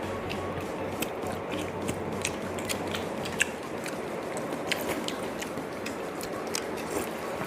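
Eating sounds: irregular sharp crunches and clicks, a few each second, as crisp fried side dishes are bitten and chewed, with one louder crunch about three and a half seconds in.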